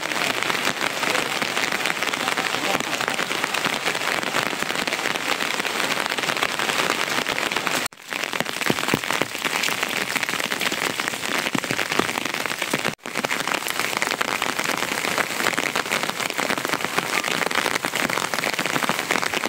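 Steady rain falling on slate and corrugated-metal roofs and wet ground, a dense even hiss of drops. It drops out briefly twice, about eight and thirteen seconds in.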